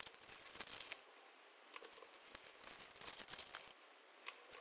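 Paper wrappers being torn and peeled off small handmade watercolour pans, crinkling and tearing in short spells.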